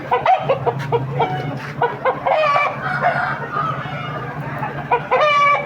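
Ayam bangkok game chickens clucking in quick short calls, then a long, harsh rooster crow just after five seconds. A steady low hum runs underneath.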